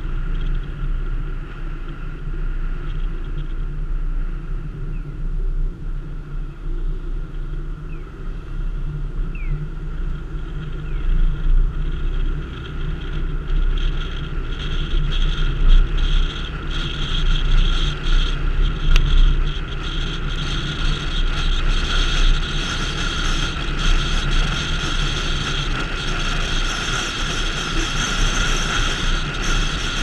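Steady low rumble of a car driving along a town road: engine and road noise.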